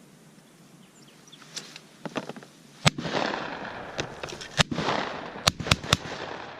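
A series of sharp shotgun reports from a Benelli semi-automatic shotgun shooting clay targets. The first and loudest comes about three seconds in, and several more follow over the next three seconds.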